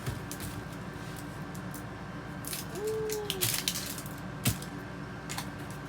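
Soft handling noises from opening a surprise egg: scattered light clicks and rustles of the wrapping and capsule, busiest in the middle, with a short soft tone that rises and falls about three seconds in.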